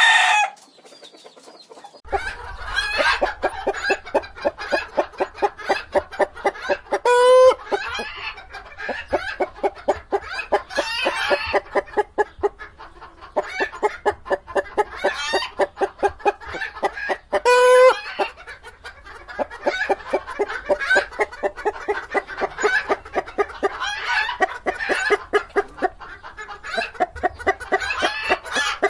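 A flock of domestic chickens clucking continuously in rapid overlapping clucks, with two short, loud squawking calls about a third and two thirds of the way through. It opens with the last moment of a pitched crow, then a brief pause before the clucking starts.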